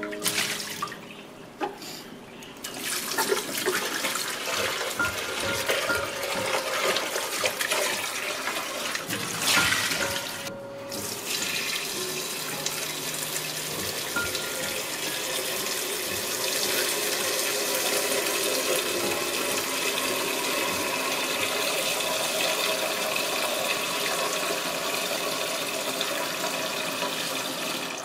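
Tap water running and splashing into a stainless steel sink while an espresso machine's plastic water tank is rinsed. The flow breaks off briefly about ten seconds in, then runs steadily.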